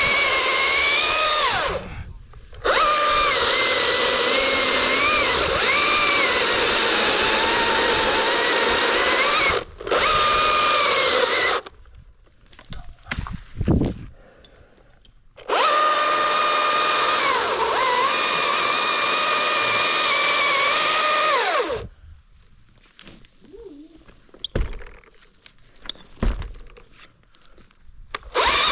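Battery-powered chainsaw cutting in long bursts, a high motor whine that sags in pitch as the chain bites and recovers, stopping and starting several times. For the last several seconds the saw is off, leaving scattered knocks and rustles.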